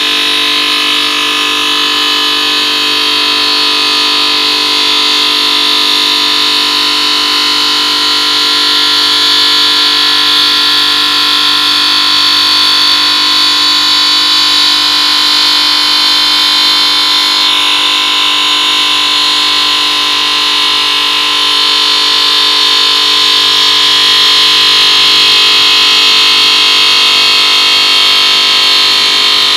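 Diamond saw blade of a CNC 5-axis bridge saw cutting stone at a bevel: a loud, steady high-pitched whine over a lower motor hum, the high pitch shifting once a little past halfway.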